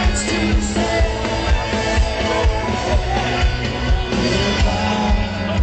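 Live rock band playing, with a singing voice over guitars and drums keeping a steady beat of about two hits a second.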